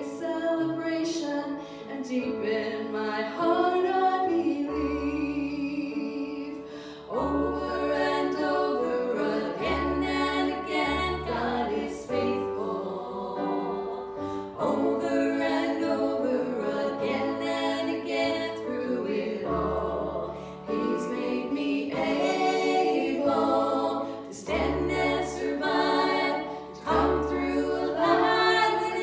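A choir singing a worship song, with held bass notes underneath.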